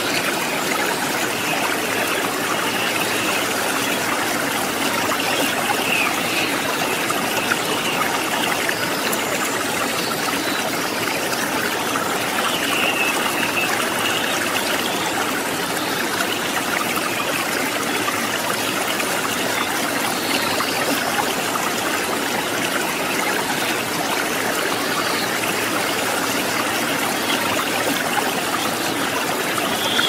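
A shallow river flowing steadily over rocks and boulders: a constant, even rush of running water.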